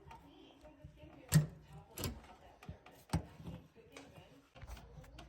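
A string of sharp knocks and clicks, three louder ones at about one-second intervals with lighter ticking between, from hands and tools working on metal parts.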